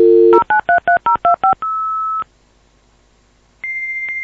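Dial-up modem connecting: a dial tone, a quick run of about eight touch-tone digits being dialled, a short single beep, a pause, then the far modem's high steady answer tone ticking about every half second.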